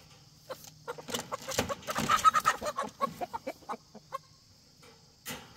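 Roosters clucking and squawking in a wire crate as a young cockerel is grabbed and lifted out, with scuffling clicks mixed in. The commotion starts about half a second in, is loudest around the middle and dies away after about four seconds.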